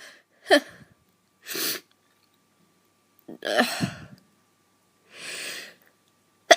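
A woman with a chesty cough sneezing and coughing in short separate fits, with sharp breaths drawn in between them. The loudest burst comes a little past halfway.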